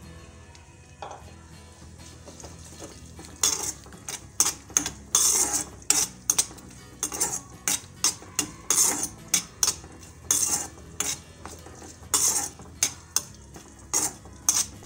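Metal spatula scraping and clinking against an iron kadhai, stirring garlic and spices in oil. There are many quick, irregular strokes starting about three and a half seconds in.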